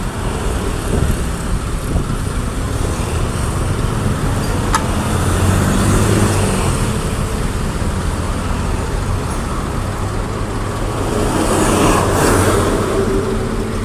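Heavy diesel engine running steadily, growing louder twice: about six seconds in and again near the end.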